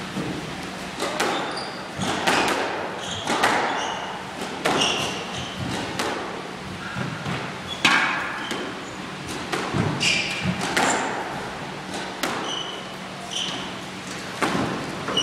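Squash rally: repeated sharp hits of the ball off rackets and the walls, with short high squeaks of shoes on the wooden court floor in between.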